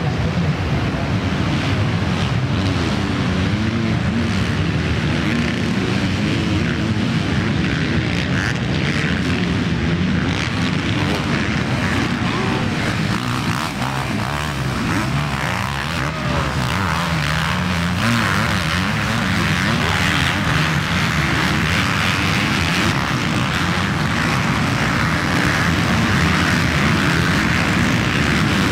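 A pack of motocross bikes racing together, many engines revving up and down at once in overlapping, wavering pitches.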